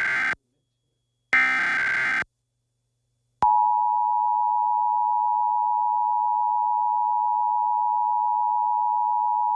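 Emergency Alert System SAME header: the end of one digital data burst and then a full third burst, each under a second long. About three and a half seconds in, the steady EAS two-tone attention signal (853 and 960 Hz together) begins and holds, opening a required monthly test.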